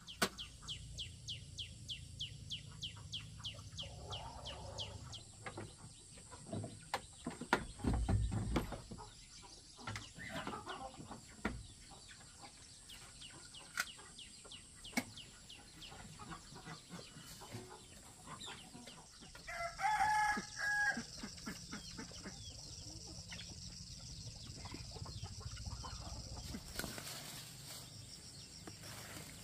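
Chickens clucking, with a rooster crowing once about twenty seconds in. A fast run of clicks fills the first five seconds, and a low thud comes about eight seconds in.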